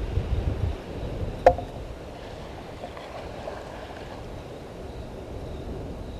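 Waterhole ambience: a low rumble of wind on the microphone, heaviest in the first second, under steady water noise, with one short sharp click about a second and a half in.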